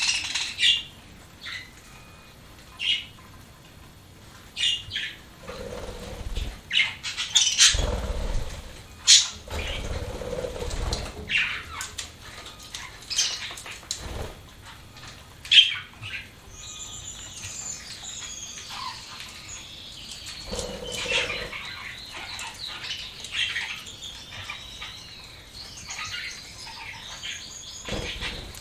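Pet budgerigars (parakeets) feeding: sharp pecking and seed-cracking clicks with a few fluttering rustles. From about halfway in, steady warbling budgie chatter runs under the clicks.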